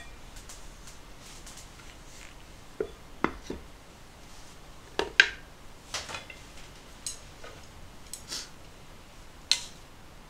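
About ten scattered clinks and knocks of tableware, the loudest about five seconds in: a plastic rice paddle scraping and tapping in an aluminium rice pot, the pot's wooden lid being put on, then chopsticks against metal soup bowls.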